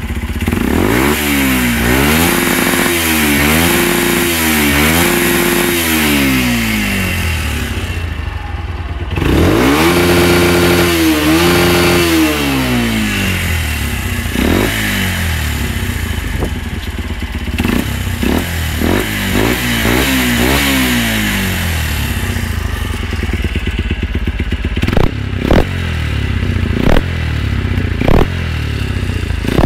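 Kymco Quannon 125's single-cylinder four-stroke engine running through a Thunder Exclusive aftermarket silencer, revved again and again: the pitch climbs, holds with small dips and drops back to idle several times. Near the end it settles to idle, with a string of sharp cracks over it.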